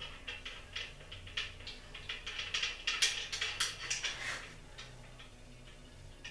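Hand tools on the main bearing cap bolts of a small-block Chevy engine as the torqued bolts are loosened and the cap is taken off: a run of quick metallic clicks and ticks, thinning out after about four seconds.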